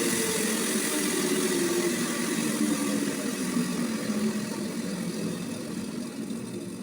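Sawmill's engine running steadily without cutting, its sound gradually dying away over the second half.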